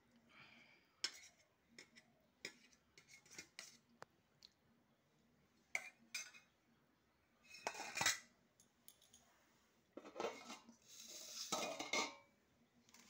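Stainless steel dishes and utensils clinking and knocking against a steel plate and pot, in scattered single clinks. There are longer scraping stretches about eight seconds in and near the end, when a steel lid is moved over the pot.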